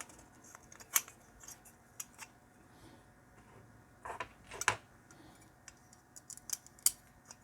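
Scattered light clicks and taps of small hardware being handled: screws, a screwdriver and the plastic and metal parts of a small amplifier's speaker connector and case.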